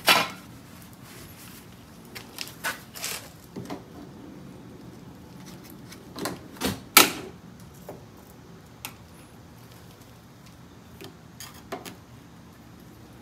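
Irregular clicks and knocks of a tool prying at a trim piece on a Porsche 914's body, trying to pop it off. The loudest knocks come right at the start and about seven seconds in.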